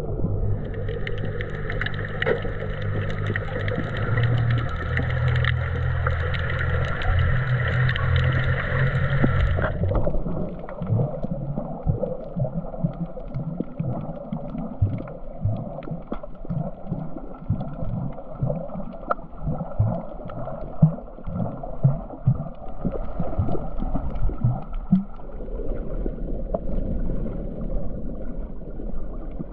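Muffled underwater sound picked up through a camera's waterproof housing while snorkeling: a low water rumble, with a steady hum for about the first ten seconds that cuts off suddenly, then uneven low surges and faint clicks.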